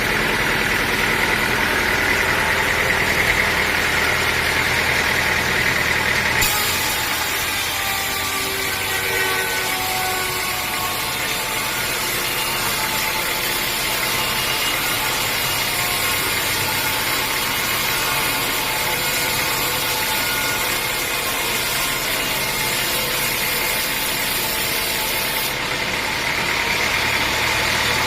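Engine of a sawmill running steadily. From about six seconds in until near the end, a harsher hiss covers it and the low engine hum drops.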